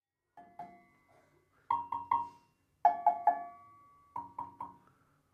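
Agogo bell struck with a soft-headed mallet. Two light taps, then quick groups of three ringing metallic notes on different pitches, repeated about every second.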